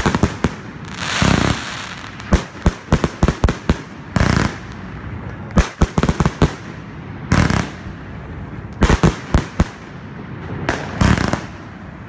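A 100-shot, 30 mm consumer firework cake firing shell after shell: sharp launch and burst bangs come in irregular clusters every second or so.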